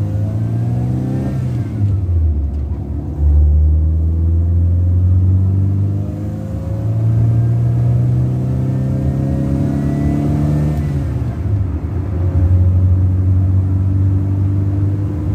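A Honda car's engine pulling through the gears: its pitch climbs slowly in each gear, then drops at upshifts about one and a half seconds and eleven seconds in.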